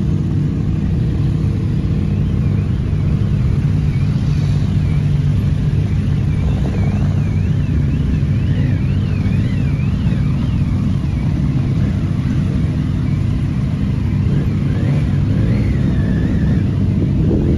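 Motorcycle engines running at low speed in a slow-moving group, a steady low rumble. A faint high tone wavers up and down about twice a second for several seconds in the middle.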